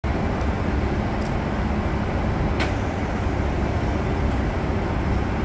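Stationary 381 series electric train at the platform, its onboard equipment running with a steady low hum. A single sharp click comes about two and a half seconds in.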